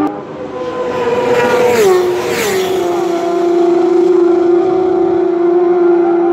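Racing superbike engine running at high revs, shifting up twice about two seconds in, then holding one steady high note.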